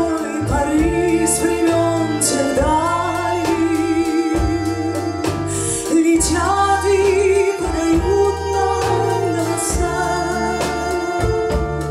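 A woman singing long held notes with vibrato into a microphone, accompanied by a live band of saxophones, trumpet and drums.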